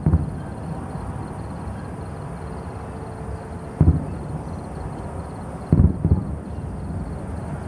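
Distant aerial firework shells bursting: dull booms, one near the start, one about four seconds in and a close pair a couple of seconds later, over a steady low background rumble.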